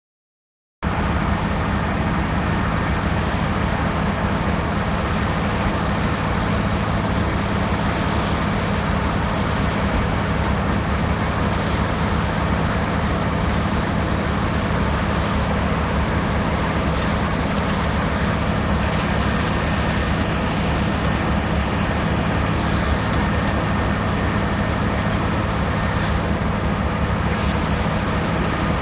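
Heavy diesel machinery running steadily: a Morbark 3200 horizontal track grinder at work, with a grapple excavator loading brush into it. The sound cuts in suddenly about a second in and holds an even level throughout.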